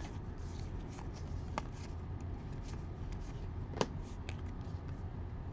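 Trading cards being leafed through in the hands: faint sliding and rustling of card against card, with a couple of sharp card snaps, the loudest about two-thirds in, over a steady low hum.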